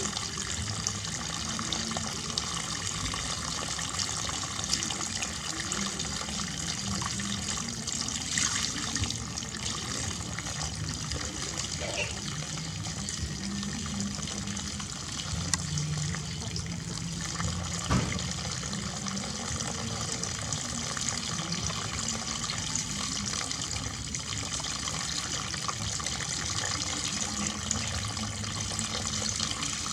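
Water running steadily from a tap, with a brief knock about two-thirds of the way through.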